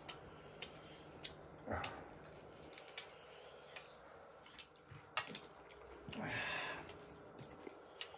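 Close-miked mukbang eating sounds: chewing and wet mouth noises with scattered small clicks, and a louder, longer noisy sound about six seconds in.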